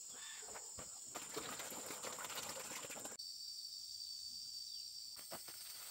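Insects droning at a steady high pitch in rural outdoor ambience. About three seconds in the drone switches abruptly to a lower steady tone, with a few faint knocks and ticks.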